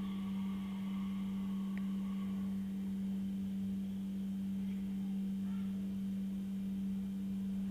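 A steady low-pitched hum on one unchanging tone.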